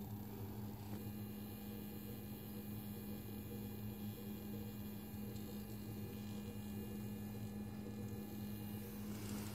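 Steady low electrical hum, with a faint high-pitched whine joining about a second in and stopping near the end.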